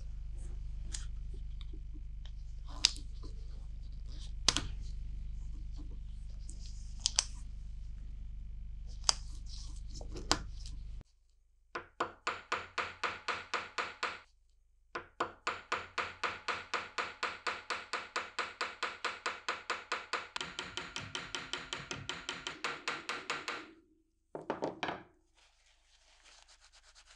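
Hand sanding or polishing of a billhook's steel tang end, masked with tape: fast back-and-forth strokes, about four a second, with a short pause after the first couple of seconds. It is preceded by a few sharp handling clicks over a low hum and followed near the end by a brief rip of masking tape being pulled off.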